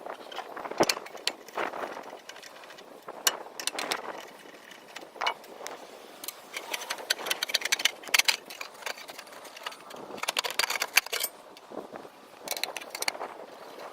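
Scattered clicks, clinks and rattles of hand tools and small metal parts being handled, with a few quick runs of rapid clicking.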